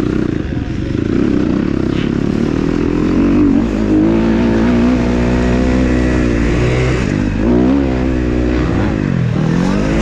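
Dirt bike engine revving under load. Its note climbs, holds, then drops and picks up again twice near the end as the throttle is rolled off and on.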